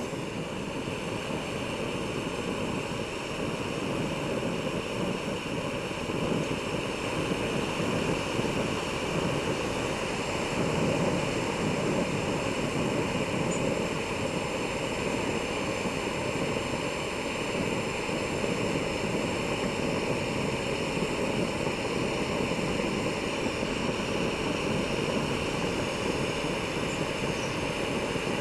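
Jetboil Zip gas canister stove burning steadily with a constant hiss. It is heating a full 600 ml pot of water that has not yet come to the boil.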